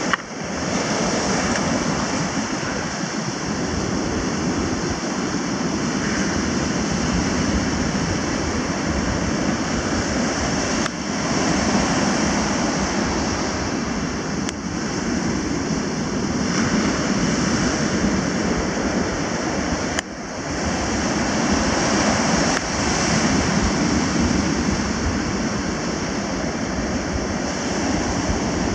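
Ocean surf breaking and washing up a sandy beach, a steady rushing noise with a heavy low rumble.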